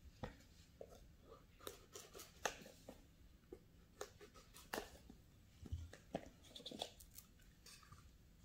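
Faint handling of a small cardboard product box: a knife blade cutting through the seal, then the box being slid apart, giving scattered soft clicks, scrapes and taps of card.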